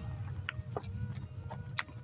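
Close-miked eating sounds: a handful of short, sharp clicks from chewing and a metal spoon on a ceramic bowl, the loudest near the end, over a low steady hum.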